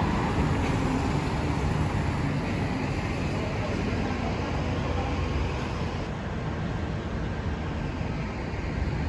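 Steady outdoor traffic and street noise: an even rumble of vehicles.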